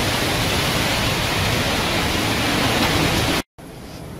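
Strong hurricane wind blowing through trees and across the microphone, a loud steady rushing noise with a deep rumble. It cuts off abruptly about three and a half seconds in, leaving a much quieter steady hiss.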